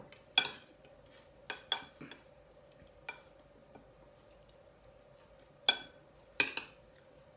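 A metal spoon clinking and scraping against a ceramic plate as food is spooned up: about seven sharp clinks at uneven intervals, with a faint steady hum underneath.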